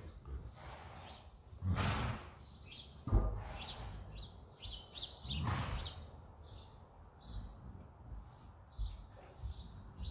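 Small birds chirping again and again in short high calls. Louder rushes of noise come about two seconds and five and a half seconds in, with a dull thump just after three seconds.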